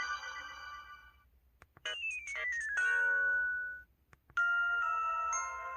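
LG-KH8000 phone's power-off jingles playing one after another: the tail of one tune fades out, then a short tune of notes stepping steadily downward in pitch, then after a brief gap another chime tune of a few held notes, fading near the end.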